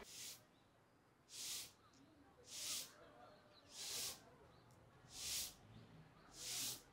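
Six short swishing hisses, evenly spaced about one every 1.2 seconds, each lasting under half a second.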